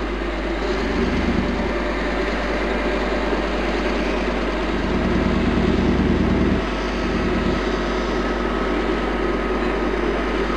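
Engine of a TPz Fuchs armoured vehicle, a V8 diesel, running steadily, growing louder twice for a second or two.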